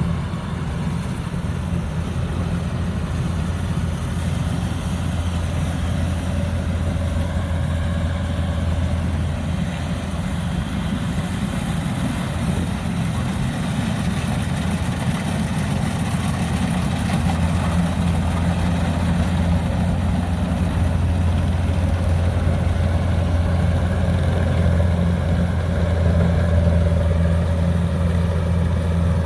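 DC-105X combine harvester running steadily, a continuous engine drone with the whir of its cutting and threshing machinery.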